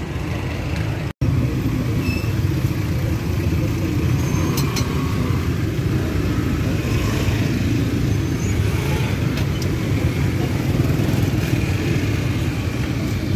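Steady low rumble of street traffic, with a few faint clicks. The sound drops out for an instant about a second in.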